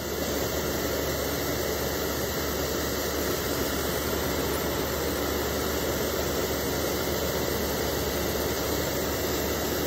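Beckett oil burner's motor and blower fan running steadily just after its primary control was reset, an even rushing hum with no change in level. The burner is in its safety timing period: with no flame seen by the cad cell, the primary control will time out and lock it off.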